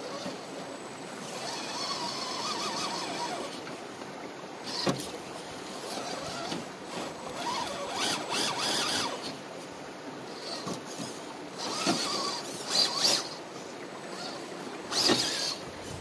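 Redcat Gen8 RC rock crawler's electric motor and geared drivetrain whining, rising and falling in pitch with the throttle as it climbs rocks. Tyres and chassis knock and clatter against the rock, with several sharp knocks in the second half, over a steady hiss.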